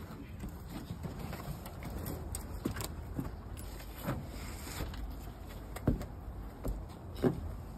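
Footsteps on wooden floorboards, a handful of irregular thuds about a second apart over a low rumble of handling noise.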